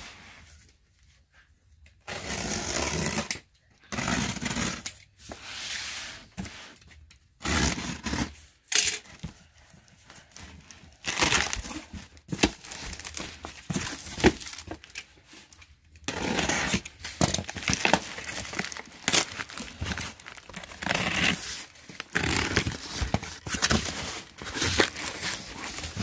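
Cardboard shipping carton being opened: tape cut and torn and cardboard flaps pulled and rubbed, in a series of short tearing and crinkling bursts.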